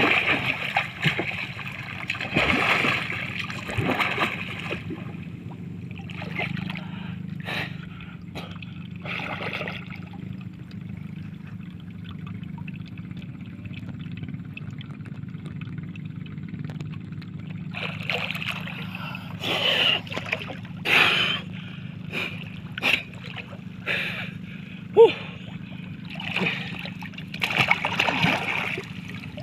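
Water splashing as a man chases fish by hand in chest-deep water beside a wooden boat. There is heavy splashing for the first few seconds, then quieter lapping with scattered small splashes, then more bursts of splashing in the last third.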